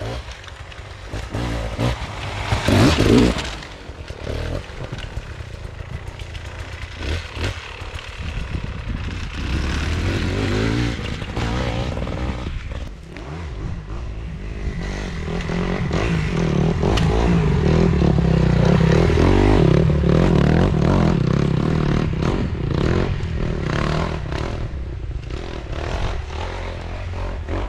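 Enduro motorcycle engine revving up and down as it rides a rough forest trail, with a loud burst about three seconds in; it grows louder past the middle and eases off toward the end.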